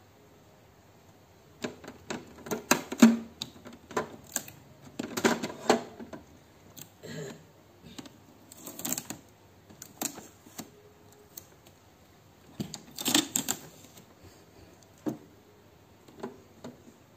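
Blue packing tape being peeled off a new Epson L3210 printer's plastic casing, in irregular crackling bursts mixed with clicks of plastic parts.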